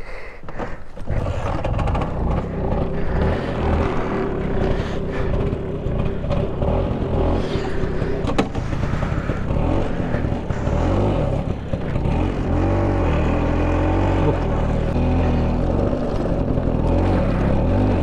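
LML NV scooter's two-stroke engine running as it is ridden over a rough dirt off-road track. It gets louder about a second in, and its pitch rises and falls repeatedly in the second half.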